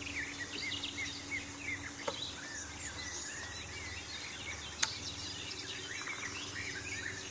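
Several songbirds singing at once, a busy chorus of short chirps and warbling phrases, over a faint steady low hum. A single sharp click about five seconds in.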